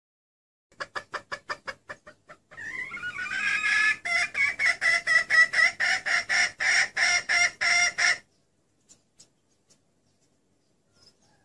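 Female red junglefowl hen clucking: a few quick clucks about a second in, then a loud, fast cackling run of about four clucks a second that stops abruptly after about eight seconds. This hen's call draws in wild male junglefowl.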